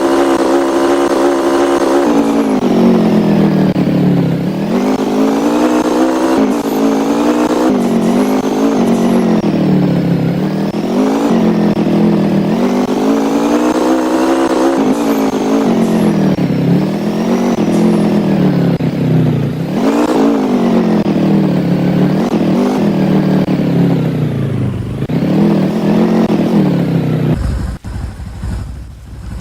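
An engine running under changing load, its pitch held steady at first, then rising and falling about every two seconds. It drops away near the end, leaving a low rumble.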